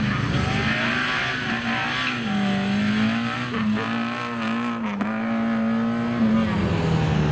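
Competition car engine held at high revs, its pitch dipping briefly a couple of times and falling away near the end.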